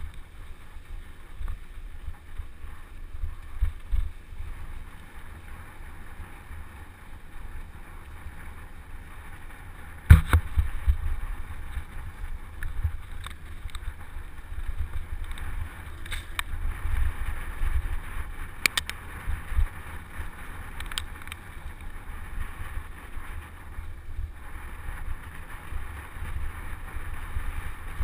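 Mountain bike riding on a dirt road: wind buffeting the microphone and tyres rolling, with occasional sharp knocks and rattles from bumps, the loudest about ten seconds in.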